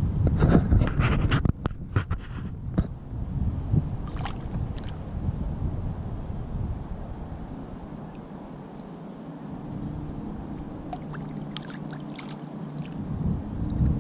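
Wind rumbling on the camera microphone, with a cluster of sharp splashy clicks in the first two seconds and more near the end as a hooked largemouth bass thrashes at the surface beside the kayak.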